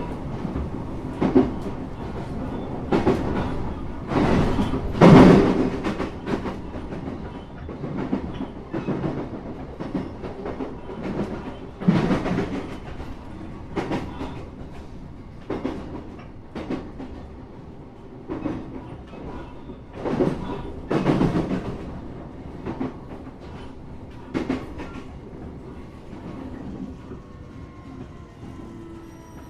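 Train wheels clattering over rail joints and points, heard from inside the passenger car, in an irregular clickety-clack with heavier thumps every few seconds over a steady running hum. The train is slowing on its approach to a station, and a faint wheel squeal starts near the end.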